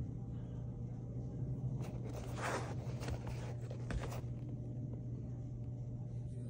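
Brief rustling and scraping from a hand handling a leather sneaker, with a few small clicks, between about two and four seconds in, over a steady low hum.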